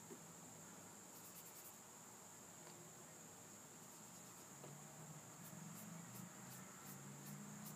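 Near silence: room tone with a faint, steady high-pitched whine and a few faint ticks, and a faint low hum in the second half.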